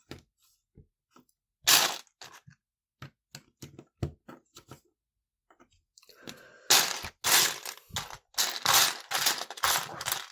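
Loose plastic Lego pieces being sifted by hand: a few scattered clicks at first, then from about two-thirds in a run of loud clattering rummages, each lasting about half a second.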